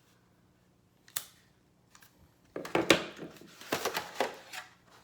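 Unboxing packaging being handled: a single click about a second in, then about two seconds of crinkling and rustling.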